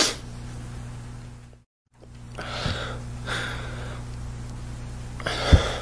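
A man crying, sniffing and drawing short noisy breaths about three times, over a steady low hum. The sound cuts out completely for a moment near two seconds in.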